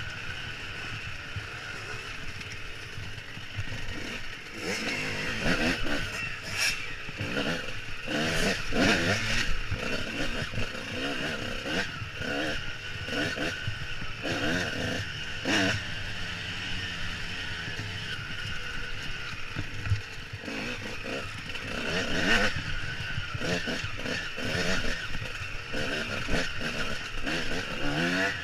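Dirt bike engine heard from the rider's helmet, revving up and down again and again as the throttle is worked over rough trail.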